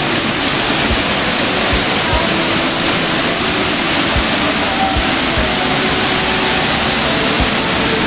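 Ka Teang waterfall pouring into its pool: a steady, even rush of falling and churning water.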